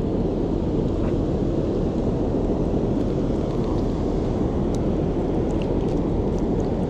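Steady low rush of water pouring over a river dam's spillway.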